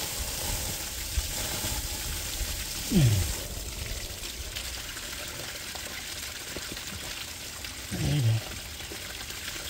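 Water running and trickling steadily into a flooded trench from a live water supply pipe under repair. Two short low sounds falling in pitch come about 3 seconds and about 8 seconds in.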